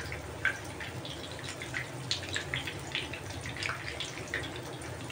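Chicken patties shallow-frying in hot oil: a steady sizzle with frequent small crackles and pops.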